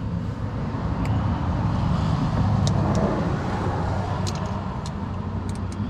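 A motor vehicle running nearby, a steady low rumble that swells in the middle and eases off toward the end. A few faint sharp metallic clicks sound over it.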